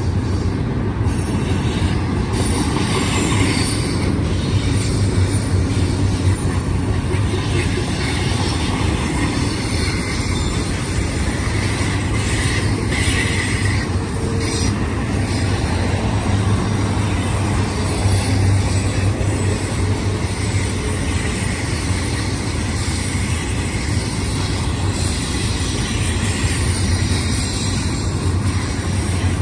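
A double-stack container freight train rolling past on a curve: a steady rumble of steel wheels on rail over a low hum, with some wheel squeal.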